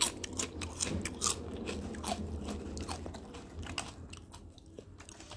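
A person chewing a mouthful of crunchy nacho chips, close to the microphone: a quick run of crisp crunches that thins out and stops about four seconds in.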